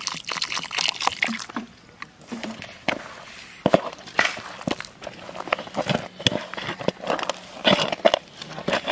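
A hand mixing crumbly spinach-paste flour dough in a steel bowl as water trickles in: irregular wet squishing and crumbling, with fingers scraping the metal bowl.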